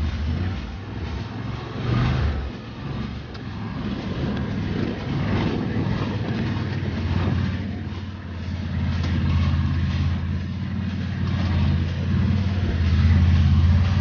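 Argo amphibious ATV's engine running, a steady low drone that swells a little near the end.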